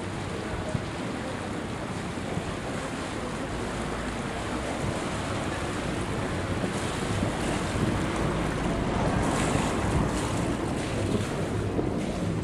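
A motor cruiser's engine running at low speed as the boat passes close by, with its water churning and wind on the microphone; the sound grows louder in the second half.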